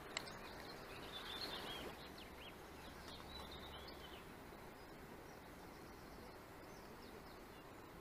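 Small birds chirping faintly over a low outdoor hiss, with one sharp click just after the start.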